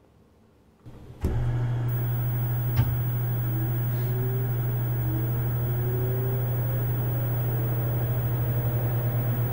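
Radio Shack TRS-80 Model II computer powering up: a click of the power switch about a second in, then a loud steady low hum from the machine, with another click a couple of seconds later and a whine rising slowly in pitch as it spins up.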